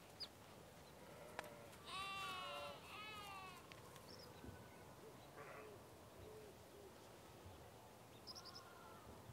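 Near silence with two faint, short animal calls that waver in pitch, about two and three seconds in, and a few faint high chirps later on.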